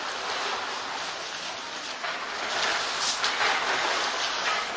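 Water splashing and sloshing as an elephant moves about in a pool, louder for a second or so about three seconds in.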